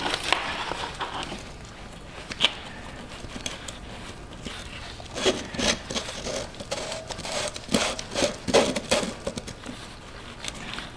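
Handling noise from gloved hands working a diesel fuel filter bowl: scattered light clicks and scrapes, busier around the middle and again a little later.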